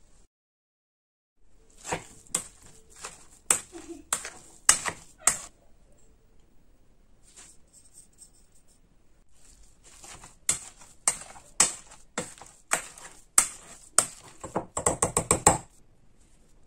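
Metal spoon and potato masher clacking sharply against an enamel bowl and plate as ingredients are scraped in and the mash is worked. It comes as a few seconds of scattered knocks, then a second series that ends in a quick run of about six knocks.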